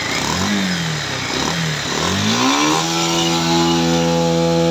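Bajaj Pulsar 150 UG5's single-cylinder engine revved with a few quick throttle blips, then held at a steady higher rev. The mechanic blames the running on a copy CDI, a pickup fault and worn valves.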